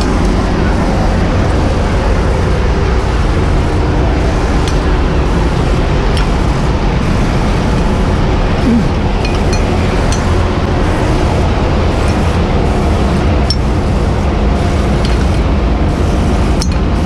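Steady drone of the aerial ladder truck's engine running to power the ladder, with occasional metallic clinks of boots and gloves on the ladder's steel rungs as a firefighter climbs down.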